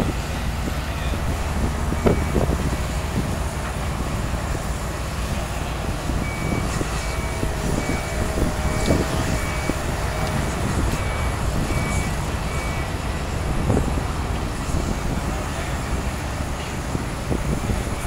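Heavy diesel engines running steadily as a crawler crane holds a steel barge section over a lowboy trailer. For about six seconds in the middle a warning alarm beeps about twice a second, and there are a few short metallic knocks.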